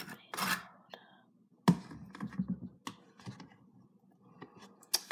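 Close handling noises of kitchen items being worked by hand: scraping and rustling, with a sharp click a little under two seconds in and a few lighter clicks after.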